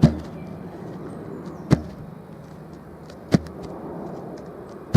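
A longboard dropped onto grass four times: four dull thuds about a second and a half apart, over a steady background noise.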